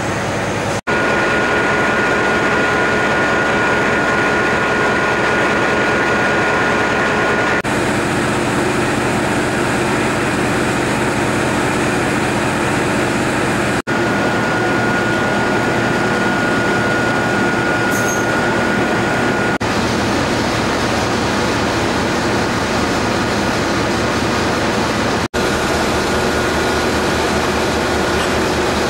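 Class 68 diesel-electric locomotives' Caterpillar V16 engines idling, a steady diesel running note with a high steady whine that comes and goes.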